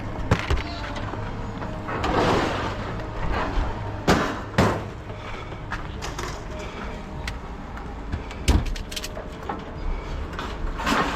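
Scattered knocks and clanks, with a scraping rush about two seconds in and sharp bangs around four and eight seconds, over a steady low hum. These are the sounds of a refrigerator being worked off a trailer.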